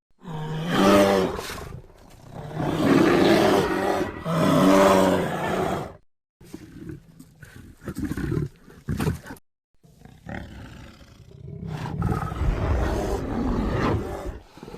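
Designed Carnotaurus dinosaur roar sound effects: three loud, pitched roars in the first six seconds, then shorter, quieter calls and a low rumbling sound near the end.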